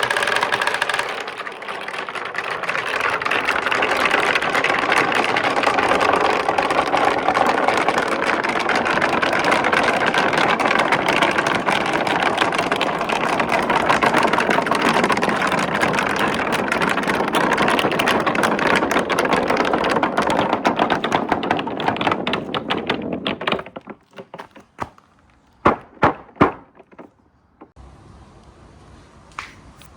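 A large batch of marbles rolling and clattering down a four-tier marble-run slope in a dense, continuous rattle. About three quarters of the way through it dies away into a few separate clacks as the last marbles come down.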